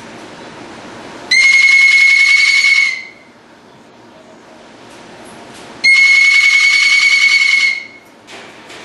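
Cockatoo screaming: two long, loud, even-pitched screams, the first about a second in and the second about six seconds in, each held for nearly two seconds.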